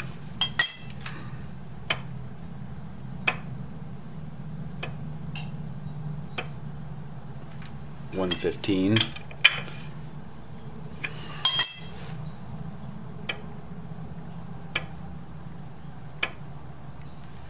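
Sharp, ringing metal clinks from a spanner on the timing-belt tensioner of a Ducati ST4 engine: two, about half a second and eleven and a half seconds in, with lighter ticks between, over a steady low hum. The tensioner is being backed off to slacken a belt that tunes too tight, at 124 Hz against the 110 Hz wanted.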